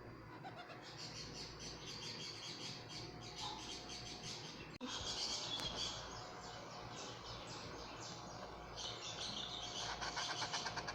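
Small pet parrot chirping in rapid runs of short, high-pitched notes, with a brief break about five seconds in.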